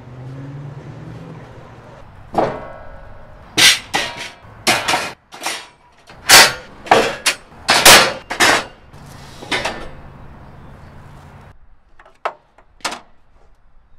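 Steel conduit and strut channel clanking, about nine loud metal knocks with short ringing tails in the middle of the stretch. Two sharp clicks follow near the end.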